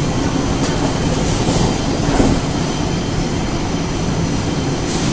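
Industrial laundry feeder and flatwork ironer line running steadily, a loud even machine rumble and hum from its vacuum suction and rollers, with a few brief swishes of bed sheets being handled.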